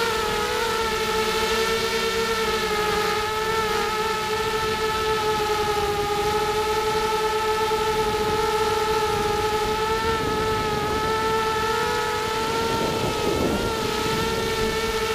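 ZMR250 racing quadcopter's four 2300 kV brushless motors and propellers whining at a steady, slightly wavering pitch in flight, heard from the onboard camera, with rough wind noise underneath.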